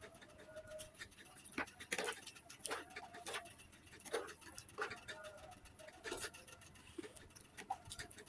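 Eating sounds: a spoon clicking against a plate, with chewing and mouth noises, about ten sharp clicks at irregular intervals.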